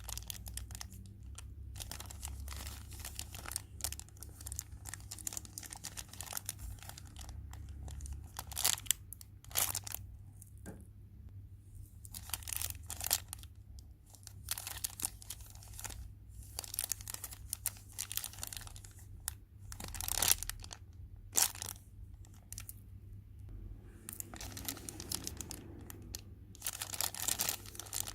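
Plastic packaging crinkling and crackling as it is handled, in irregular clusters of sharp crackles.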